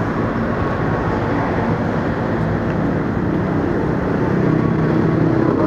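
Steady hum and rush from a KRL Commuterline electric train standing at the platform, its onboard equipment running, with a faint low hum underneath.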